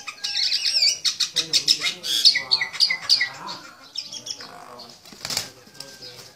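A sparrow chirping in a rapid string of short, high notes that thins out after about four seconds. Just past five seconds comes a brief burst of wing flapping as the rooster lunges at it.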